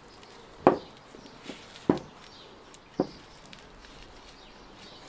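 Three sharp knocks about a second apart, with a few faint ticks between them.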